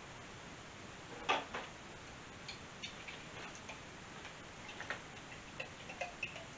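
Glass jar of apple jelly tipped and emptied into a slow cooker: a sharp knock about a second in, then faint, irregular clicks and taps of a utensil against the glass as the jelly is worked out.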